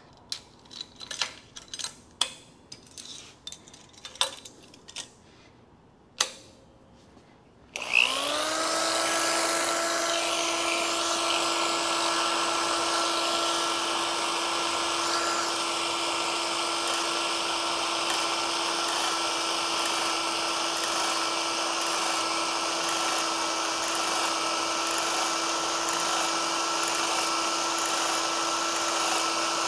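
A few knocks and clinks of metal parts being set on a steel table. Then, about eight seconds in, a power scraper's motor spins up and runs at a steady pitch.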